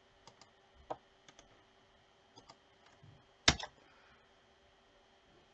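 Computer mouse clicks and keyboard key presses, a few scattered light clicks with one much louder click about three and a half seconds in, over a faint steady hum.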